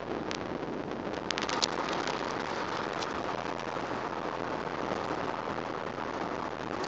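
Mercedes-Benz car driving at speed, heard from inside the cabin: a steady rush of tyre and wind noise, with a few sharp clicks over the first three seconds.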